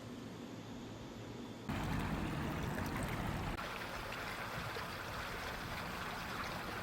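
A steady hiss of rushing water starts suddenly about two seconds in, over a faint room hum.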